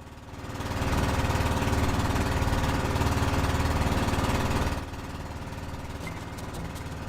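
Small boat's engine running with a fast, even pulse. It grows louder about a second in and drops back to a quieter level about two-thirds of the way through.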